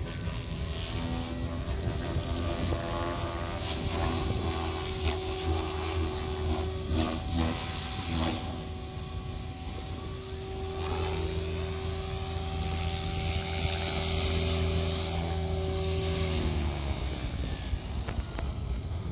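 XL Power Specter 520 electric RC helicopter flying, its rotor and motor whine holding a steady pitch with small shifts as it manoeuvres. About sixteen seconds in, the pitch falls and the whine fades as the rotor spools down after landing.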